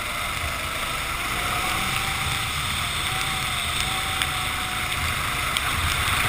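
Racing kart running at speed on a wet track: a steady rush of wind and water spray over the engine, whose note rises and falls slightly.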